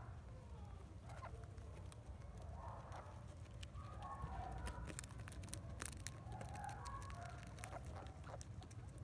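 Dry hay crackling in crisp clicks as a baby guinea pig chews and rummages, most busily in the middle. Soft, short clucking calls come about once a second throughout.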